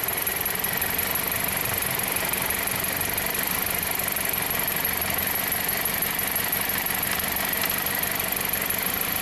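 2007 Jeep Compass four-cylinder engine idling steadily and missing on cylinder 1: a test light clipped onto the number 1 ignition coil's control wire draws extra current and makes the coil drop out.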